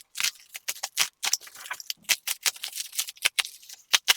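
Plastic packaging crinkling and rustling in quick, irregular crackles as it is handled and pulled open.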